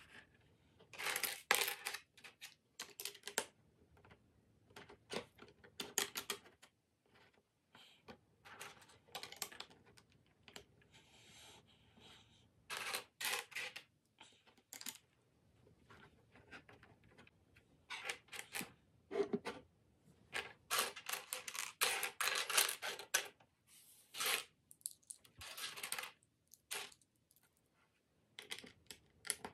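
Plastic LEGO bricks clattering and clicking as hands rummage through a loose pile and fit pieces onto plates, in irregular bursts of rattling with short pauses between, sped up to 1.5× speed.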